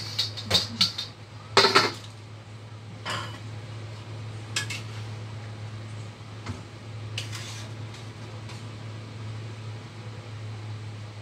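Metal cookware and utensils clattering and clanking. A quick run of knocks comes in the first second, the loudest clatter near two seconds in, then scattered single clinks, over a steady low hum.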